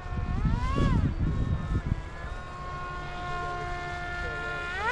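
Motor of a 3D-printed RC F-22 model jet whining. Its pitch swells up and back down about a second in, holds steady, then rises sharply near the end and stays high. A gusty low rumble runs under it for the first two seconds.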